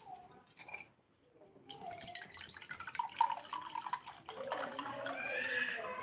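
A run of quick small clicks, then a cat beginning to meow near the end: drawn-out calls that rise and fall in pitch.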